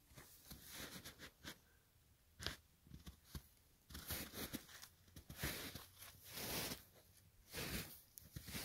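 Footsteps crunching in snow: a walker's uneven steps, about two a second, faint.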